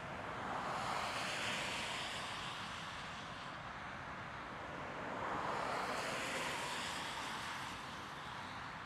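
Distant Airbus A330-300 jet airliner climbing away after takeoff: a broad, rushing engine roar that swells and fades twice.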